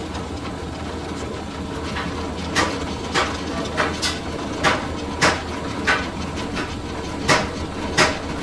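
A hammer striking metal, about eight sharp blows spaced roughly half a second to a second apart starting about two and a half seconds in, over the steady hum of a running machine.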